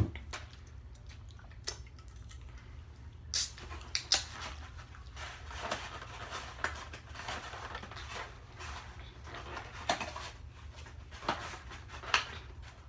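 Close-miked eating sounds: chewing and mouth smacks, with scattered sharp clicks, the sharpest a little over three seconds and about four seconds in, over a steady low hum.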